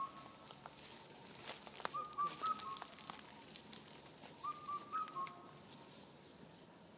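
A bird's short whistled phrase of a few quick notes, repeated three times about every two and a half seconds. Scattered knocks and rustles come from young toque macaques handling the camera, tripod and furry microphone windshield.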